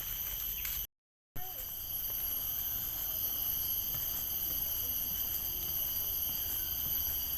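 Steady high-pitched chorus of forest insects, layered droning tones that hold without a break. The sound cuts out completely for about half a second, about a second in.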